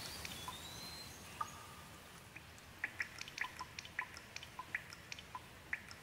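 Rain falling with a steady hiss. From about halfway through, water drops drip and plink in quick irregular succession, a few each second.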